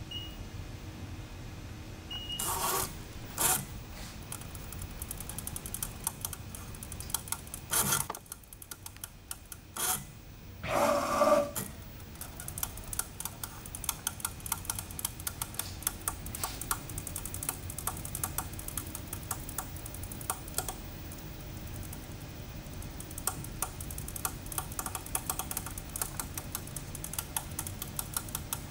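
ProtoTrak AGE 3 CNC control on a Trak K3 knee mill starting a short program: two short keypad beeps near the start and a few knocks, then a fast, steady ticking as the control runs the program.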